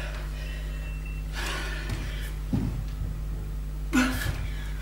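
A woman breathing hard between bodyweight exercises, with a long heavy exhale about a second and a half in and another breath near the end. Soft thumps about two and a half and four seconds in as she gets down onto a wooden floor into a plank.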